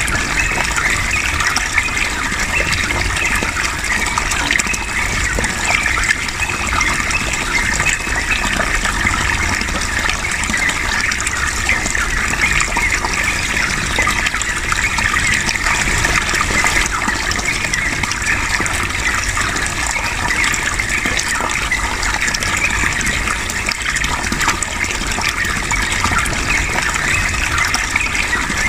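Running water, a steady, continuous gushing flow.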